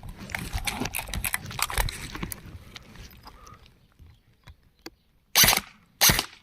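Scattered light clicks and knocks of handling, then two short, sharp shots from an airsoft M4A1 replica fired at a cardboard target, about a second before the end and again just after.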